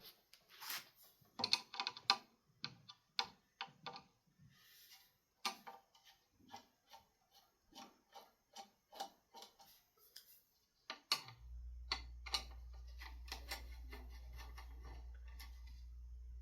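Irregular clicks and taps of hands working on a ceiling fan, then about 11 seconds in a steady low electrical hum starts and holds: the Hampton Bay ceiling fan's motor switched on and running with no blades fitted.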